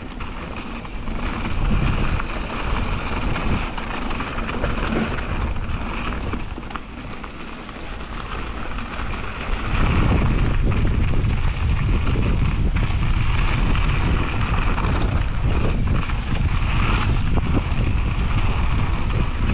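Mountain bike descending a dirt flow trail, heard through a GoPro microphone: steady wind noise on the mic with the tyres rolling and scattered knocks and rattles from the bike. The wind rumble on the microphone grows much louder about halfway through as the bike picks up speed.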